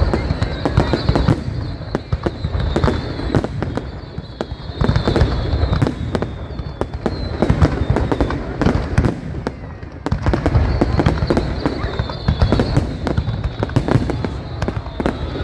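Aerial fireworks display going off continuously: a dense run of booming bursts and crackling in quick succession, with no break.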